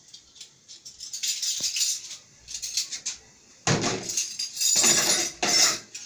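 Clean dishes and plastic containers clattering and knocking together as they are handled. Scattered light clinks at first, then louder clattering and scraping for about the last two seconds.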